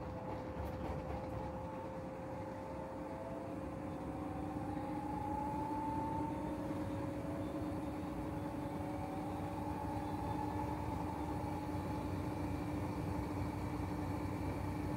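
Two front-loading washing machines, an AEG Öko-Lavamat and a Whirlpool FSCR70420, running on a rinse-and-spin cycle. A steady motor whine carries higher tones that waver and rise, and the sound grows gradually louder as the drums speed up.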